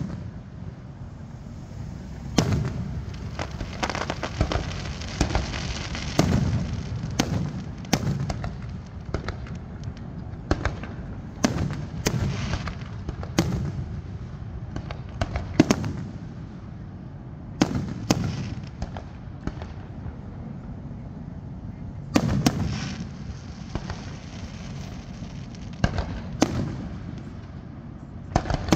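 Aerial fireworks going off in a steady run of shell bursts: sharp bangs every second or two, each trailing into a low rumbling echo.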